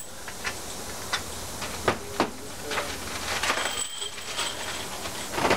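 Small parts clicking and knocking as they are handled on a workbench, then a plastic bag crinkling from about three seconds in.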